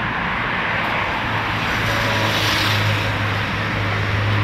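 Passing engine noise with a steady low hum that comes in about a second in and swells in the middle.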